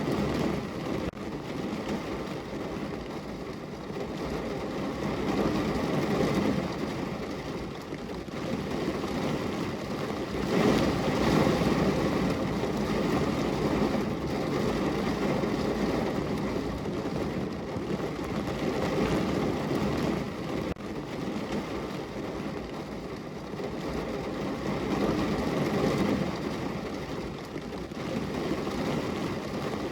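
Heavy rain falling on a car's roof and windows, heard from inside the car: a dense, steady patter that swells and eases in waves every few seconds.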